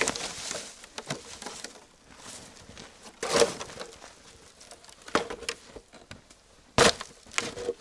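Boots crunching in snow and several sharp knocks and thuds as a large, heavy piece of dug-up scrap metal is moved and set down.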